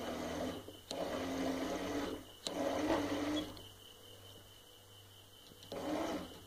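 Small water pump motor running in short spurts of about a second, switching on and off four times as the water-level float is moved by hand. A steady low electrical hum runs underneath.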